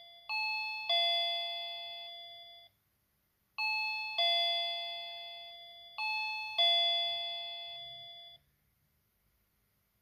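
VOYE plug-in wireless doorbell chime playing a two-note ding-dong, a higher note then a lower one, three times, each fading and then cutting off. Each chime is set off by touching together two wires that bypass the transmitter's push button, so the transmitter works with its suspected faulty button bypassed.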